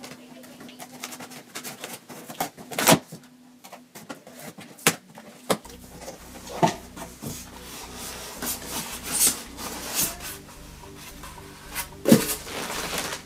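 Cardboard shipping box being cut open and unpacked by hand: scissors on packing tape, flaps pulled back, cardboard scraping and packing material rustling. Several sharp knocks stand out, the loudest about three seconds in and again near the end.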